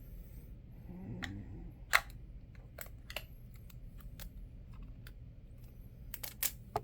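Clicks and taps of small plastic parts being handled: a Blink video doorbell and its back plate. The sharpest click comes about two seconds in, with a few more near the end.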